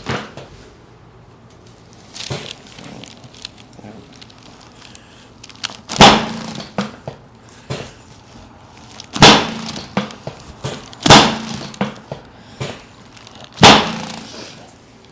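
Chiropractic adjustment thrusts on a treatment table: four sharp thumps with cracks, a few seconds apart, and a few fainter clicks between them.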